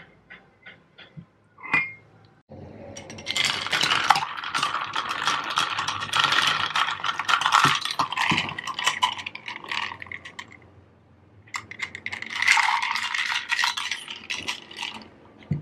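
Glass clinking and rattling: a metal straw knocking against a glass jar of milk tea. Scattered light clicks at first, then two long stretches of dense, fast clinking, the second starting about twelve seconds in.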